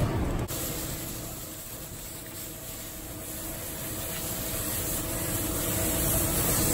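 Water hose spraying onto a rooftop unit's coils to wash them. The hiss dies down early on and builds up again toward the end, over a low rumble and a faint steady hum.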